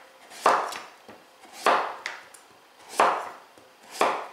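Chef's knife slicing through delicata squash and striking a wooden cutting board, about four cuts at a steady pace of roughly one a second.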